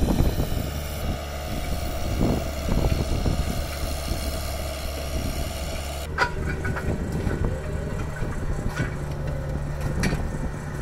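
A machine's engine running steadily, a low even hum with no speech over it; about six seconds in the sound changes character as the higher noise drops away.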